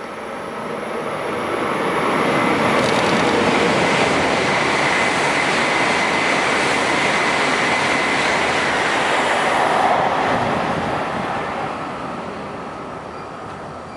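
E7 series Shinkansen running through the station at speed without stopping: a loud rushing noise of wheels and air. It builds over the first two seconds, holds for about eight seconds as the train passes, then fades as it recedes.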